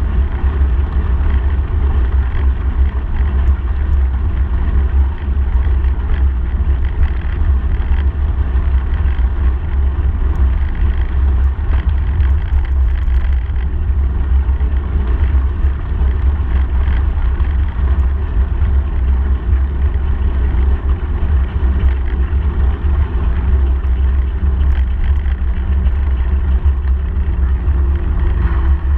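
Steady, loud low rumble of wind buffeting the microphone on a moving bicycle, over the hiss of its tyres rolling on a gravel path.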